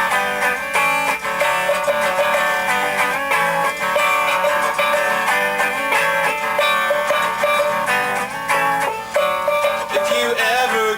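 A song led by guitar, the strings strummed and plucked.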